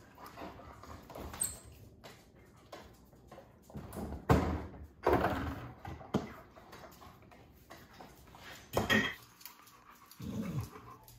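Knocks and rattles from a refrigerator door as a dog pulls it open and takes a plastic water bottle from the door shelf. The loudest bumps come about four to five seconds in and again near the nine-second mark.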